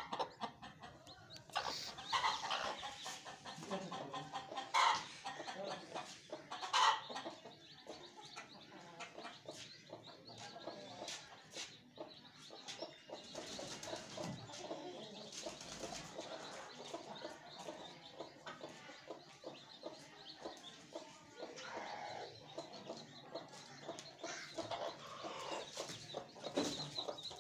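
Hen clucking among her brood, with chicks peeping in short high chirps throughout; two louder short sounds stand out about five and seven seconds in.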